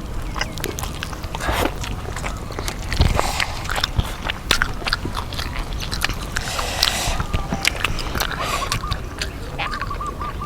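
Close-up crunching and chewing of crispy deep-fried chicken: many sharp, irregular crackly bites.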